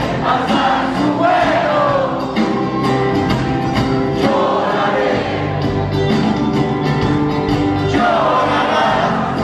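Live folk-rock band playing with singing: acoustic guitar, electric bass and drum kit under a sung melody, with steady drum strokes.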